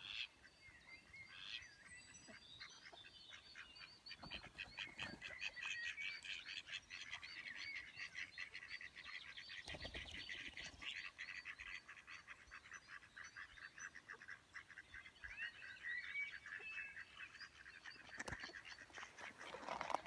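Mallard ducks calling in a long run of quick quacks. A short low flutter comes near the middle as one duck flaps up off the bank.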